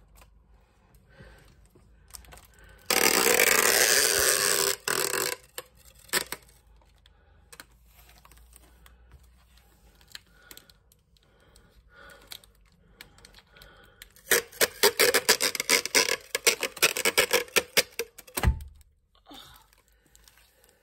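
Packing tape pulled off a tape dispenser roll: one loud, even pull lasting about two seconds around three seconds in, then a longer stretch of rapid crackling as more tape is drawn off from about fourteen seconds in, ending in a low thump. Between them, faint rustling of hands on cardboard.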